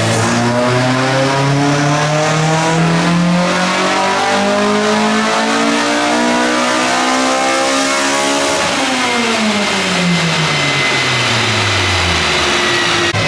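Honda Civic engine making a full-throttle pull on a chassis dyno, its front tyres driving the rollers. The revs climb steadily for about eight and a half seconds, then the throttle closes and the revs wind back down.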